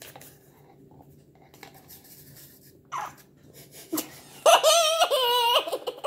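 High-pitched laughter in a few wavering bursts starting about four and a half seconds in, after a few quiet seconds.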